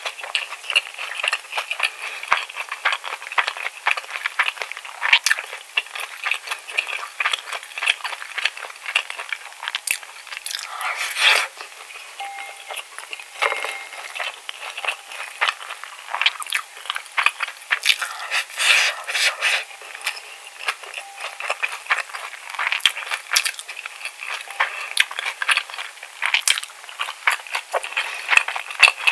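Plastic spoon scraping and clicking against a stoneware bowl, gathering the last of the rice, with close-miked chewing and mouth sounds of a mouthful of spicy cockle bibimbap.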